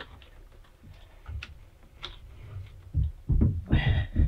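Motorcycle battery being worked up out of its tray by hand: light clicks and scrapes, then several low knocks and thumps in the last second or so as the battery comes free.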